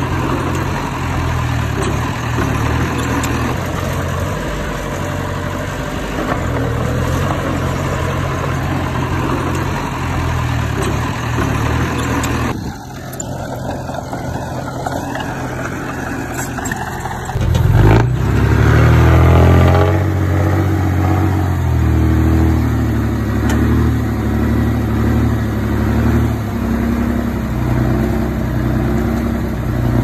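Diesel engine of heavy earthmoving machinery running steadily. It drops quieter about 13 seconds in, then revs up loudly about 18 seconds in and settles back to a steady run.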